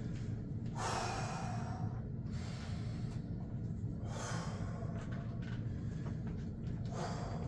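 A man breathing deeply to recover after a set of weight-pulling reps: three long, slow breaths a few seconds apart, over a steady low hum.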